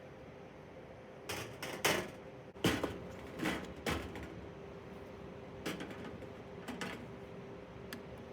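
A series of irregular knocks and clicks, a close cluster of sharper ones in the first half and a few fainter ones later, over a faint steady hum.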